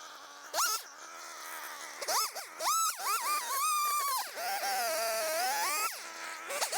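Background music: a high, wavering melody line that slides smoothly between notes, with sweeping rises and falls.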